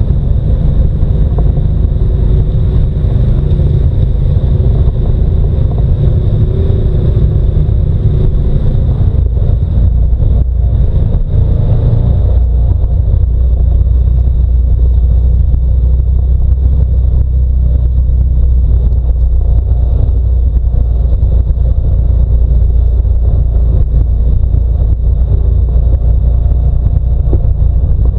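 Side-by-side UTV running along a dirt trail: a steady engine drone under a heavy, deep rumble. About twelve seconds in, the deep rumble grows stronger while the higher engine sound drops back.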